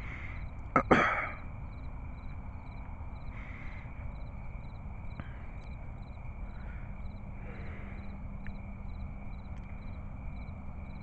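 Crickets chirping in a steady rhythm, about two chirps a second, over a steady high insect hum. Two sharp clicks and a brief rustle come about a second in.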